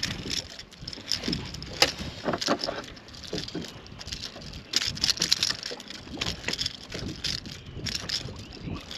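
Clicking and rattling of a lure's hooks and tackle while a hooked bass is handled and unhooked, with a couple of sharper knocks about two seconds in.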